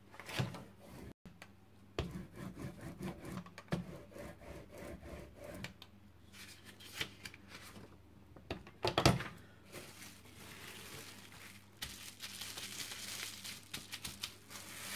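Hands handling paper and plastic on a tabletop: irregular rubbing and rustling with small knocks, and one loud knock about nine seconds in. Near the end, bubble wrap crinkles as it is laid on and pressed onto a gel printing plate.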